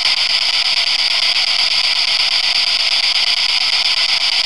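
Spirit box radio sweeping through stations: a steady, loud hiss of static with faint, rapid, even ticks as it steps.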